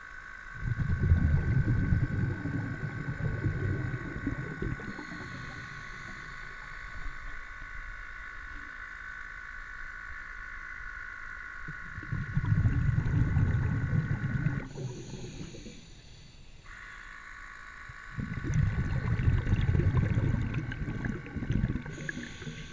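Underwater sound: a steady high-pitched whine cuts out for about two seconds after the middle, and there are three spells of low rumbling as water moves against the moving camera.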